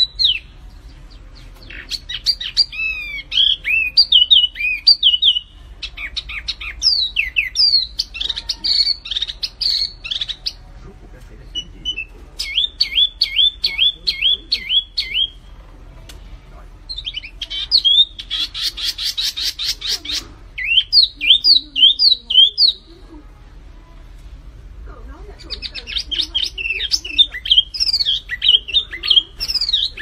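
A small caged songbird singing loud phrases of rapid swooping whistled notes, each phrase a few seconds long with short pauses between. About two-thirds of the way through comes a fast, harsh rattling run of ticks.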